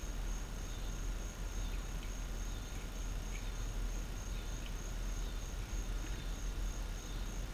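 Steady outdoor background of low rumble and hiss, with a continuous high insect drone and a few faint short chirps.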